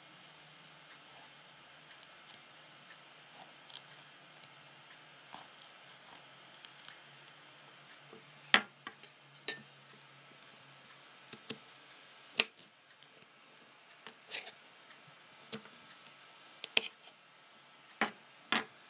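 Knife cutting a cucumber and pieces being handled on a kitchen counter: scattered sharp clicks and taps at irregular intervals, the loudest ones past the middle.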